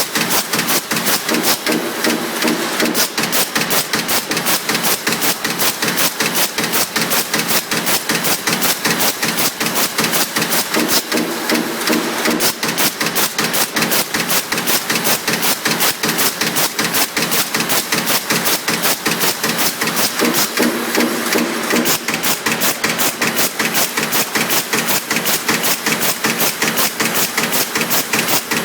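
Power press on a CNC sheet-feed line stamping sheet metal in a fast, even rhythm of several strokes a second. A brief hum joins in about every nine seconds.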